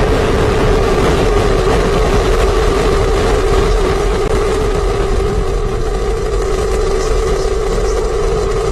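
Falcon 9 first stage's nine Merlin 1D rocket engines firing at full thrust just after liftoff: a loud, steady rumble.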